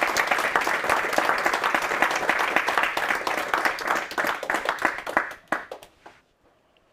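Audience applauding, a dense patter of many hands clapping that thins to a few scattered claps and dies away about six seconds in.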